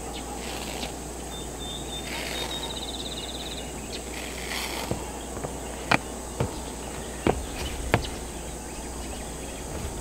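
Steady outdoor background with a rapid high insect trill early on. In the second half come a handful of sharp taps and clicks as adhesive foam closure strip is pressed onto the ribs of metal roof panels.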